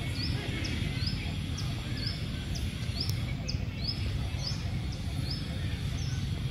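A bird repeating a short, high chirp at a steady pace, a little under twice a second, over a steady low outdoor rumble.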